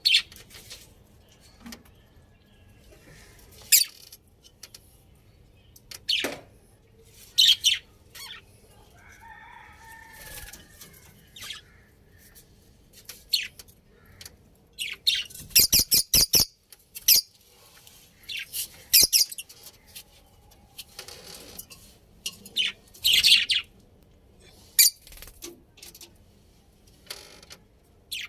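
Budgerigars chirping in short, scattered high calls, with a brief warbling chatter. A quick run of sharp clicks comes about halfway through.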